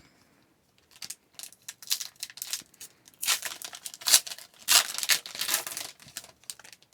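Foil wrapper of an Upper Deck hockey card pack crinkling and tearing as it is opened by hand, in irregular bursts that are loudest in the second half.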